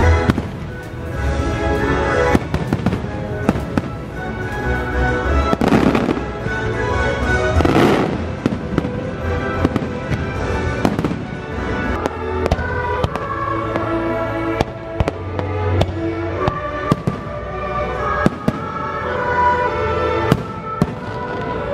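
A fireworks display with aerial shells bursting in quick succession, many sharp bangs and bigger blasts about six and eight seconds in. The show's music plays underneath.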